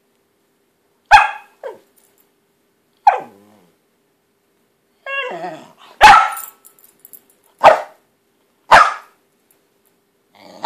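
Miniature Pinscher barking sharply about six times, a second or two apart, with a drawn-out growl just before the third bark: frustrated demand barking at a water bottle that it wants but is not given.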